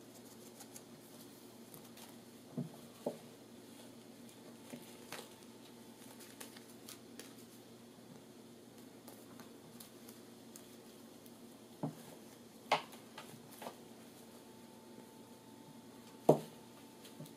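Kitten pouncing on a wooden coffee table after a feather wand toy: scattered soft pattering and a few sharp thumps and taps as its paws and the wand hit the tabletop, the loudest about sixteen seconds in, over a faint steady hum.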